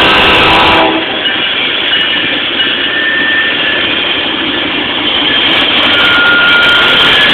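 Norfolk Southern diesel freight locomotive's air horn sounding and cutting off under a second in, followed by the steady noise of the locomotives' engines and the train passing close by.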